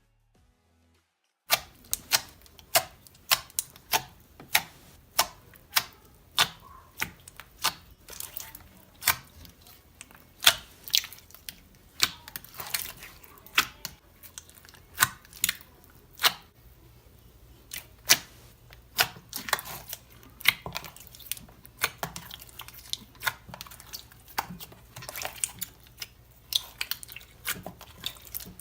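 Slime being kneaded and squeezed by hand, giving off sharp sticky clicks and pops, roughly one or two a second, starting about a second and a half in.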